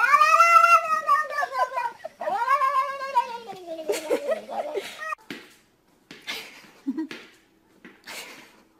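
Calico cat yowling: two long, drawn-out wails that rise and then fall, then a third that wavers downward, over the first five seconds. After that come only shorter, fainter sounds.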